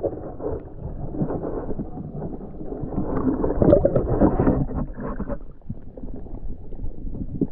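Water heard through a submerged camera: muffled swishing and gurgling, dense with small crackles and knocks.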